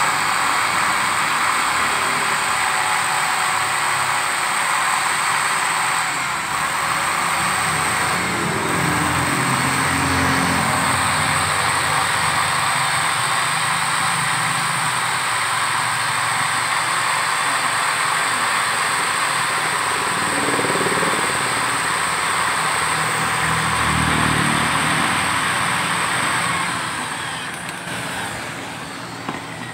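Steady whirring of a small power drill spinning a valve against its seat in a motorcycle cylinder head, lapping the valve in; it winds down near the end.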